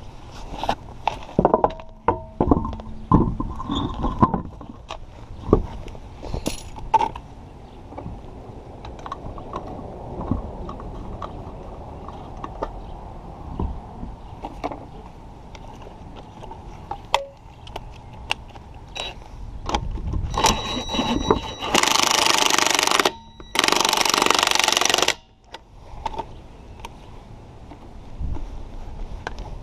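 Hands refitting a car wheel: metal clinks and knocks as the alloy wheel is hung on the hub and the lug nuts are threaded on. About three-quarters through come two loud, steady bursts of noise a few seconds long, broken by a short gap.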